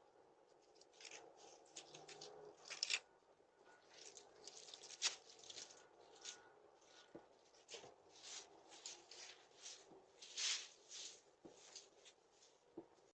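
Faint, irregular rustling and scraping: many short scratchy sounds scattered throughout, a few slightly louder ones near 3, 5 and 10 seconds in.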